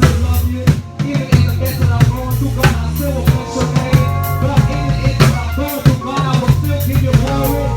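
Live gospel band playing without vocals: electric bass holding loud low notes over a drum kit's kick and snare, with keyboard chords, and a short break in the groove just under a second in.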